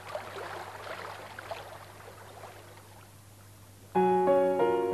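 Faint trickling water for about four seconds, then loud piano-like keyboard chords come in suddenly near the end.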